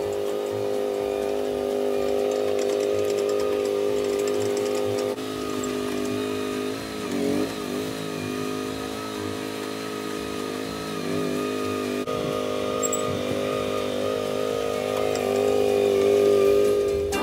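Komatsu PC01-1A micro excavator's small gasoline engine running steadily while the machine travels on its tracks. The pitch dips and wavers briefly about seven seconds in and again around eleven seconds. The engine gets louder near the end.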